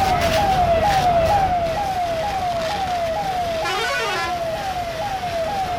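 Emergency vehicle siren sounding a fast repeating falling tone, about two sweeps a second, over a steady noisy background. A brief higher warbling tone joins it about four seconds in.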